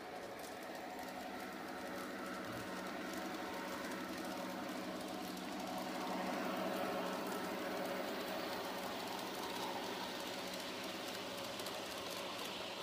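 Garden-railway model train running along its track: a steady motor hum and wheel rumble that grows louder toward the middle, as it passes close, then eases off near the end.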